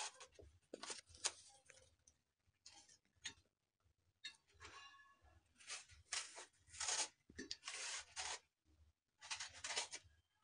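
Apple being peeled with a metal hand peeler: a run of faint, irregular scraping strokes as the blade shaves off the skin.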